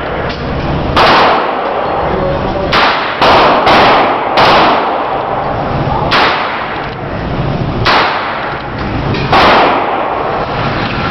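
Gunshots at a shooting range: about eight loud single shots at uneven intervals, three of them in quick succession around three to four seconds in, over a steady background hiss.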